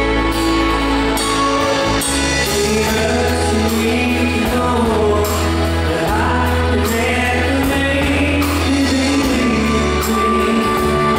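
A live band plays a pop-rock song with bass guitar, acoustic guitars, keyboard and drums. A male lead voice starts singing about two seconds in, after held opening chords.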